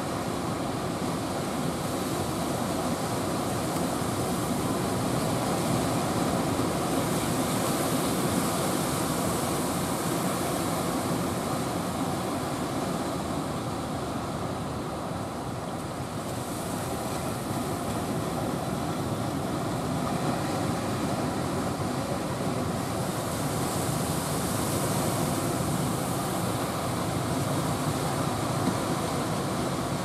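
Heavy surf breaking and rolling in a steady rush, swelling twice as larger waves break, with wind buffeting the microphone.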